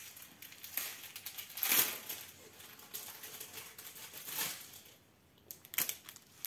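Plastic packaging crinkling and rustling in the hands in a few short bursts, the loudest about two seconds in.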